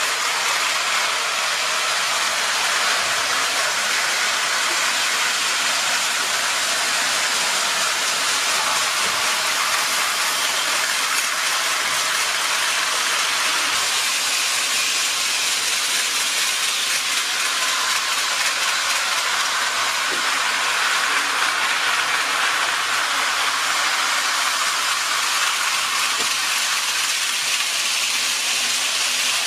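Tin-plate O-scale electric model trains running on metal track: a steady, even rolling noise of wheels and electric motors.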